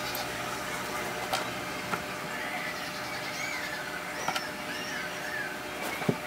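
Light clicks and taps of thin plywood model-kit pieces being handled and pressed together, a handful of separate clicks over a steady background hiss. A run of short, high squeaks comes in the middle.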